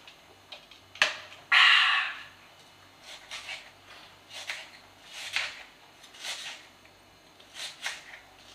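A sharp knock about a second in and a loud half-second rush of noise just after, then a knife cutting onion on a wooden chopping board in slow, uneven strokes about once a second.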